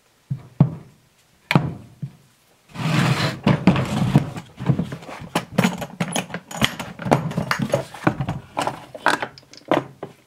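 A few sharp knocks, then a DeWalt hard plastic tool case being handled and opened from about three seconds in: a busy run of clicks, knocks and clatter from the case and the tools inside it.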